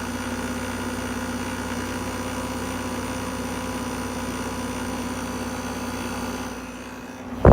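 Steady mechanical hum in a home, made up of several fixed tones, which the uploader does not think is normal. It eases off near the end, and a single sharp knock comes right at the close.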